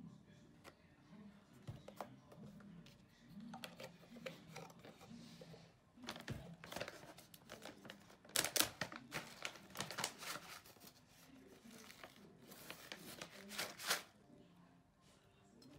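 Plastic granola pouch crinkling and rustling as it is picked up and opened, with a run of sharp crackles, loudest about halfway through and again near the end.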